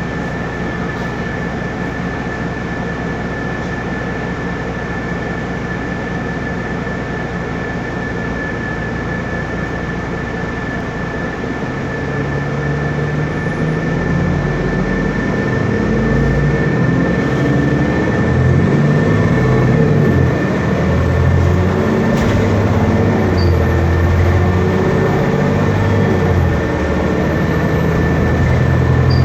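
An Otokar Kent LF bus's Cummins ISB diesel running steadily with the air-conditioning on, a steady high whine throughout. About twelve seconds in the engine picks up and gets louder, its note rising and dropping in steps as the bus pulls away and the ZF automatic changes gear.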